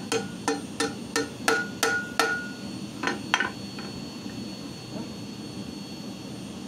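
Hand hammer striking a red-hot steel leaf on a flat steel-plate anvil: about nine sharp metallic blows in the first three and a half seconds, the plate ringing briefly after several of them. After that the hammering stops and only a low steady background is left.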